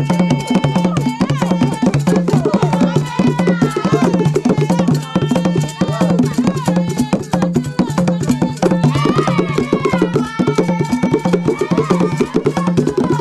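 Traditional Chewa drumming for the Gule Wamkulu dance: fast, steady beating on low-pitched drums with sharp higher strikes, and voices singing over it.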